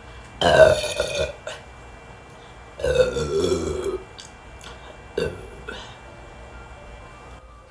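A person burping loudly twice, each burp lasting about a second, then two short, fainter sounds.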